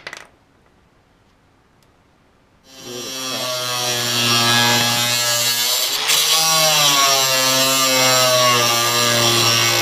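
A sharp knock, then about three seconds in an angle grinder starts up and spins up to speed, running with a steady whine. Its pitch sags and recovers as the cut-off wheel cuts through the sheet metal of a pickup fender.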